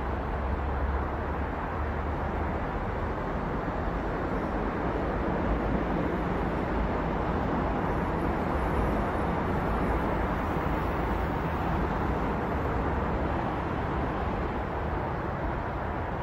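Steady city road traffic: a continuous hiss and rumble of many cars passing, with no single vehicle standing out, swelling slightly around the middle.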